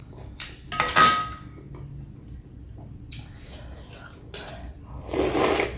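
Chopsticks clinking against a glass bowl of noodle soup, with one sharp ringing clink about a second in, then loud slurping of noodles and broth near the end.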